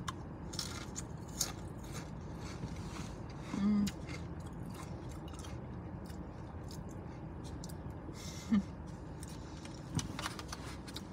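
Mouth and handling sounds of eating from a plastic takeout bowl: soft chewing and small clicks and rustles of the plastic container and fork, over a steady low hum. A short hummed voice sound comes about three and a half seconds in, and a briefer one comes a few seconds later.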